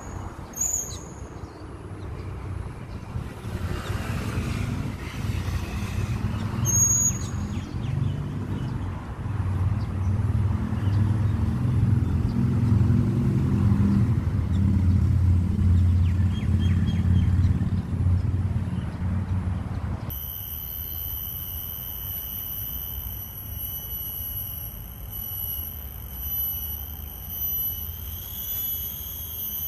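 Low, steady rumble of road traffic that swells in the middle, with a few short high chirps near the start and about seven seconds in. About two-thirds of the way through it cuts to a steady high-pitched buzz made of several tones.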